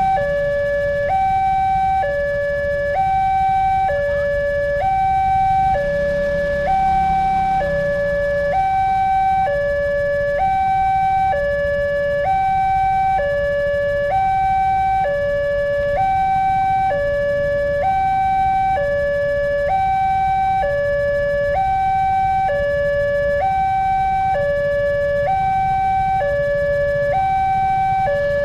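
Electronic warning siren of an Indonesian railway level crossing, sounding a steady two-tone alternation between a higher and a lower note, each held about a second, while the barrier is down for an approaching train.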